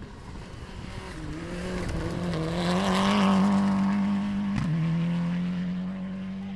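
Rally car engine approaching and passing on a special stage, the engine note growing louder to a peak about three seconds in. About four and a half seconds in there is a brief break and a drop in pitch, then the engine carries on as it fades.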